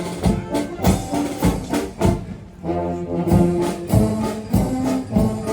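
Brass music, trombone-like held notes over a steady drum beat.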